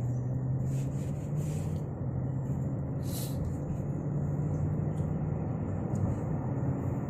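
Car engine and road noise heard inside a moving car's cabin: a steady low hum over an even road rumble, with a brief hiss about three seconds in.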